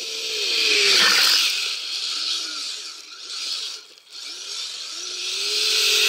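Kyosho Blizzard RC snowcat's electric drive whining, dipping and rising in pitch, while its tracks hiss through the snow. It is loudest as it runs close by about a second in and again near the end, falling off briefly about four seconds in.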